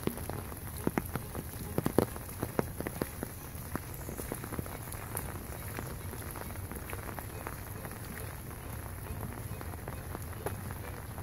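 Steady rain falling, with scattered sharp drop taps close by, most of them in the first few seconds.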